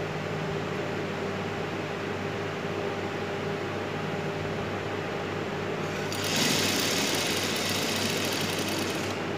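Industrial sewing machine stitching fast in one run of about three seconds, starting about six seconds in, as the extra cloth is sewn down in small knife pleats. A steady low hum runs underneath.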